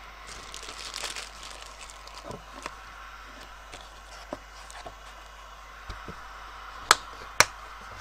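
Hard plastic carrying case being handled and shut: light rustling and small knocks, then two sharp clicks about half a second apart near the end as the case is closed.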